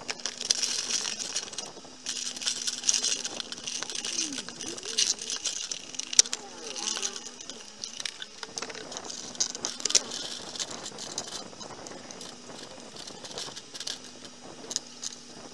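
Plastic toy soldiers and play-set pieces clicking and clattering as they are handled, with scattered sharp clicks over a steady faint hum and hiss.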